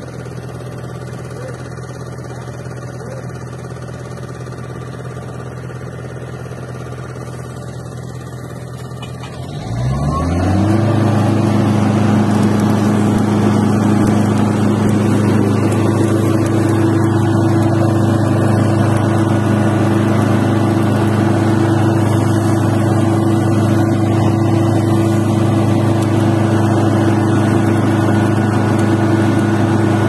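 Kubota diesel engine of an engine-driven welding generator running steadily at low speed. About ten seconds in it quickly rises in pitch and speeds up to a steady, louder working speed, with the crackle of a stick-welding arc over it.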